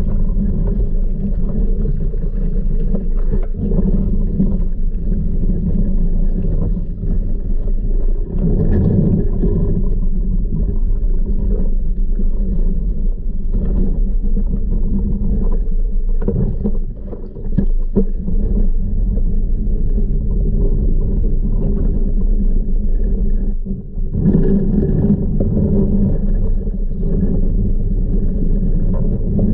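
Muffled underwater rumble with a steady low hum, heard through a submerged camera as a weighted flexible pool vacuum head on its suction hose is pushed across the pool floor, with occasional knocks and scrapes.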